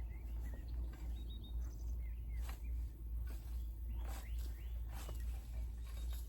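Small birds chirping in short calls over a steady low rumble, with a few sharp clicks or rustles.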